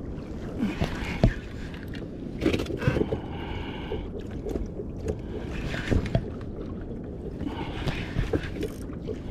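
Water washing and lapping against a plastic kayak hull, a steady low rush, with a few dull knocks now and then.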